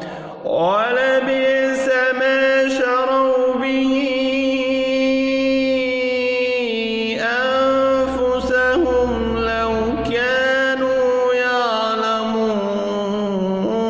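Qur'an recitation in a melodic chanted style: a single voice holding long drawn-out notes, one lasting about five seconds, with pitch glides between the held notes.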